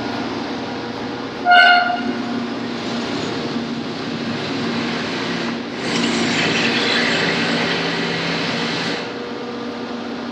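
Gardner double-disc grinder running, a steel knife blade in a jig pushed back and forth against the wheel under flowing coolant to grind it to final thickness. A steady machine hum throughout, a brief high squeal about a second and a half in, and a louder hissing grind from about six to nine seconds in.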